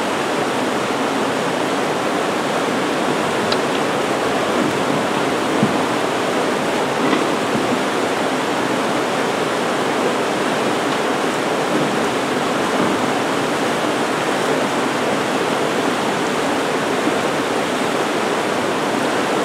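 Fast river water rushing over rapids: a steady, even noise of moving water, with a few faint ticks.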